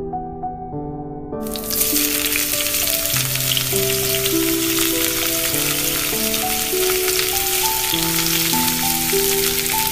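A potato-and-cheese-filled dough roll sizzling on a hot miniature iron griddle. The sizzle starts suddenly about a second and a half in, as the roll goes down on the pan, and stays steady. Soft background music with slow held notes plays underneath.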